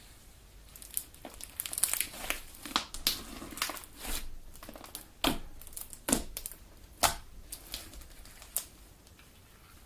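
Homemade Elmer's glue galaxy slime being squeezed and pulled by hand: a string of sharp, sticky pops and crackles with soft squishes between them. The pops start about a second in, peak in a few loud snaps toward the middle, and stop near the end.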